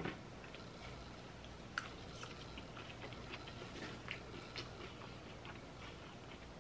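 Faint sounds of two people eating chicken and rice: chewing, with light clicks of metal forks against foam takeout containers. The two sharpest clicks come at the very start and about two seconds in.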